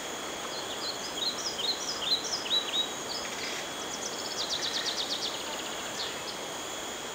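Open-air ambience with a steady background hiss, and a small songbird singing a run of short, falling chirps followed by a rapid trill about four seconds in.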